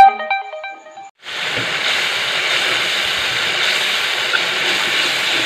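Thick gravy sizzling and bubbling in a wok over a gas stove: a steady hiss that starts about a second in, after a short run of electronic tones fades out.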